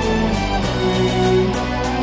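Instrumental background music with held notes and a steady beat.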